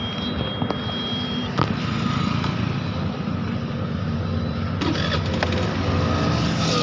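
Motor vehicle engine running with road and traffic noise, a steady rumble that slowly grows louder.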